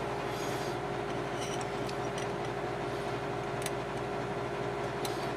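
Steady mechanical hum in a home machine shop, with a few faint light ticks as a small hand pick is run into a freshly cut relief groove on a lathe-held engine cylinder.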